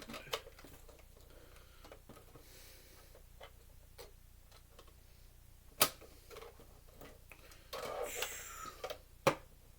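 Scattered small clicks and taps from handling the casing and parts of a Blu-ray player being taken apart. Two sharp, louder clicks come about six seconds in and near the end, with a brief scraping rustle just before the second.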